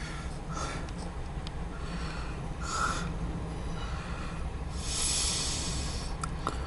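A few hissing breaths or sniffs close to the microphone, the longest and loudest about five seconds in, over a steady low rumble, with a couple of small clicks near the end.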